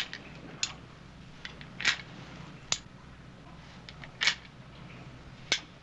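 Single-action revolver being handled: about six sharp metallic clicks, some slightly rattly, as the cylinder is turned and worked, over a faint low hum.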